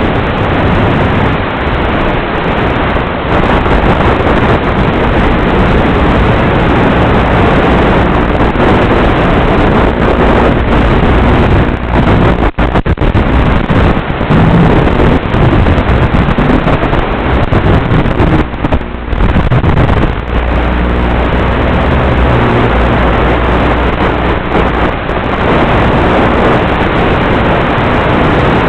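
Loud, steady rushing noise on the analog FPV video recording from the UMX F-27 micro wing in flight, with a faint hum under it and a couple of brief dips about halfway through.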